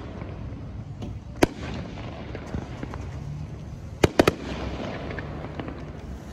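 Fireworks going off: a sharp bang about a second and a half in, then three bangs in quick succession a little after four seconds, over a steady background rumble.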